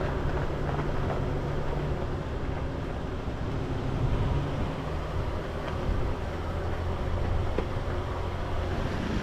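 Toyota Land Cruiser 76's V8 turbo-diesel engine running steadily at low speed on a rough dirt track, with tyre and body noise and a couple of short knocks over bumps in the second half.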